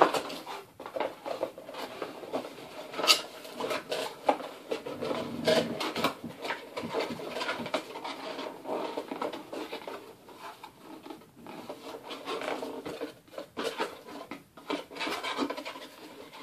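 Cardboard Loot Crate box being bent and folded by hand: irregular rubbing, scraping and creasing of cardboard, with scattered small knocks and clicks as the flaps are worked.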